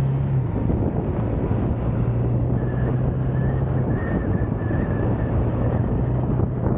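Motorcycle engine running on the move, with wind rushing over the microphone.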